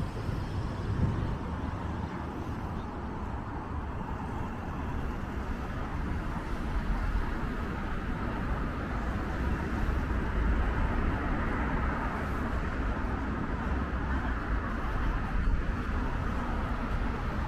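City road traffic: cars running past in a steady low rumble that grows a little louder after the first few seconds.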